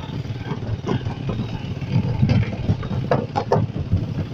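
Motorcycle engine running while riding along a wooden plank boardwalk. A few sharp knocks come about three seconds in.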